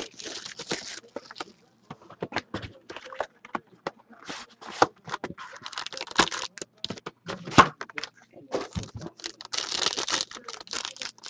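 A sealed trading-card box and pack being opened by hand: plastic wrapping crinkling and tearing and cardboard scraping, in an uneven run of clicks with several short rustling spells.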